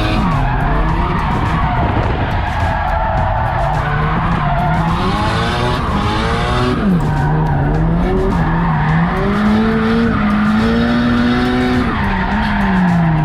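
Car engine revving hard, its pitch climbing and dropping again and again, with tyres skidding and squealing as in drifting.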